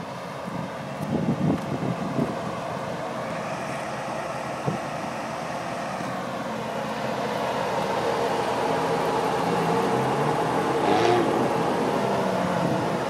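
A vehicle engine idling steadily, growing louder from about eight seconds in, with a few low bumps of wind on the microphone about a second in.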